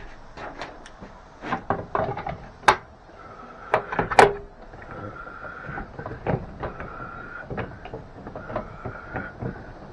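Woodworking clamps and boards being handled and set in place: a string of irregular knocks and clacks, the loudest two about three and four seconds in.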